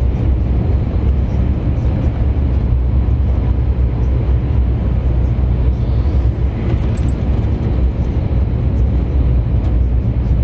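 Lorry diesel engine and road noise: a steady low drone of the truck driving along.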